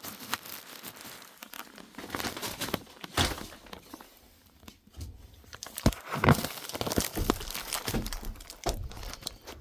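Tools being handled and sorted through: irregular clicks, knocks and rustling, as hex keys and tools are picked up and set down.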